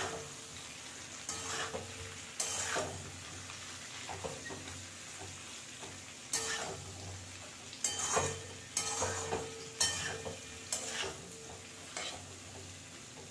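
A steel spoon scrapes and tosses green mango pieces frying in an aluminium kadai, in about ten irregular strokes over a steady faint sizzle.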